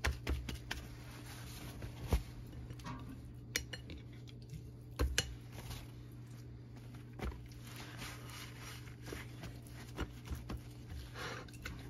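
Paper towel rustling and patting against a raw swordfish steak on a ceramic plate, with scattered light knocks and clinks of the plate, over a steady low hum.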